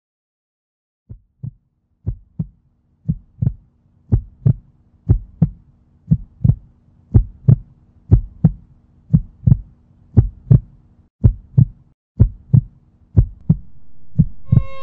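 Heartbeat sound effect: paired lub-dub thumps about once a second, starting after a second of silence and growing louder. Near the end, string music swells in underneath.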